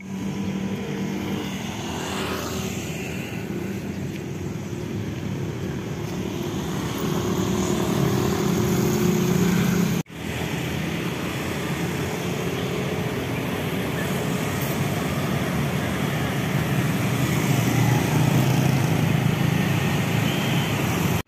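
Street traffic, mostly small motorbike engines running and passing, a steady engine hum that swells and fades. It breaks off abruptly about halfway and then resumes.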